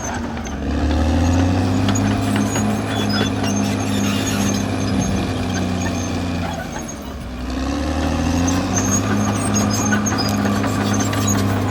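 Caterpillar D6R XL bulldozer's diesel engine running under load, its revs dropping about seven seconds in and climbing again a second later.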